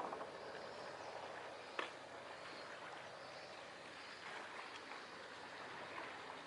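Small waves lapping in a fishing harbour, a faint steady wash of water with one short, sharp slap a little under two seconds in.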